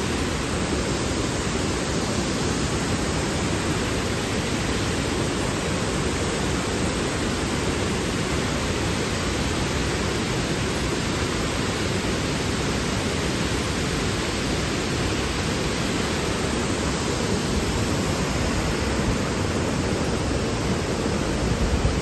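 Large waterfall plunging down a rock face: a steady, unbroken rush of falling water.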